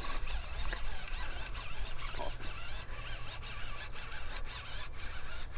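Fishing reel being cranked steadily, a fast-geared frog-fishing reel winding in braided line with a hooked bass on. It makes a continuous whirring rasp.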